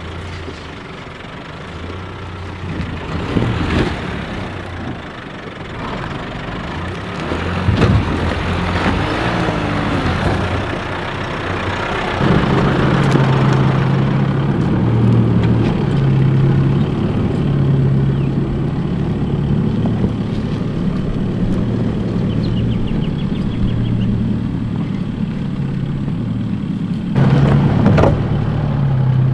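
Nissan Navara 4WD's engine working at low speed under load as it crawls up a rocky, rutted climb. The engine gets louder about twelve seconds in and its pitch steps up and down, with scattered knocks and thumps from tyres and suspension over the rocks, the loudest near the end.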